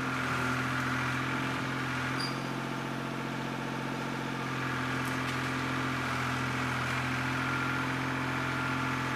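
Tractor diesel engine running steadily, with no change in speed.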